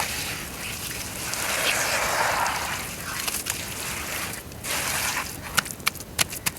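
Lumps of dry brown dirt crumbling in water, with a wet, washing sound that swells and fades, and a run of sharp crackling clicks near the end.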